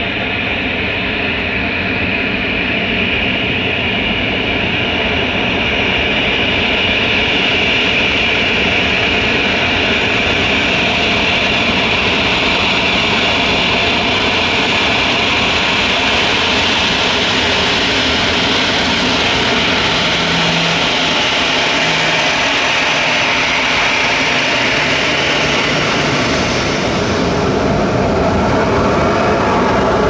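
Airbus A319 turbofan engines running at taxi power as the airliner taxis close by: a loud, steady jet roar with a high whine on top, the whine fading near the end.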